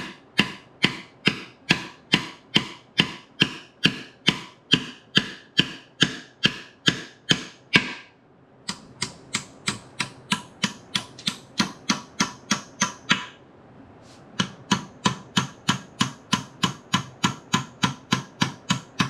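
Hammer tapping a shaft through a 1939 Ford transmission case: steady, ringing metal strikes about three a second, in three runs with short pauses after about eight and thirteen seconds, driving the shaft home.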